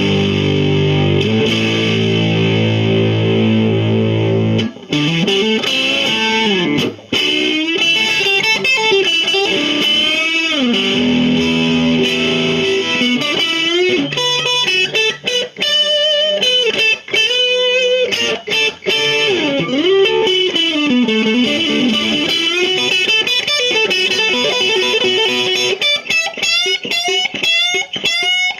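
Squier Classic Vibe '50s Duo-Sonic electric guitar on its neck pickup, played loud and overdriven through a Marshall Lead 12 combo amp. It holds chords for about the first five seconds, then plays a single-note blues lead full of string bends.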